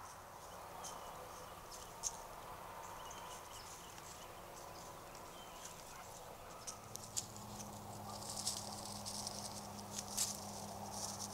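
Faint rustling and crackling of dry leaf litter as white-tailed deer step and feed on the ground, the crackles growing more frequent toward the end. A low steady hum comes in about two-thirds of the way through.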